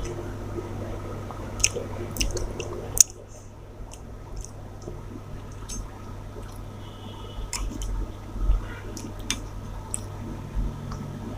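A person chewing rice and curry: wet squishing mouth sounds with scattered small clicks, the sharpest about three seconds in.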